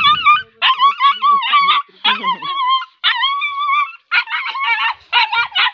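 A young dog yelping and howling in distress as it is held by the tail and forced into a sack. It gives a rapid run of about seven high, wavering cries, each under a second long.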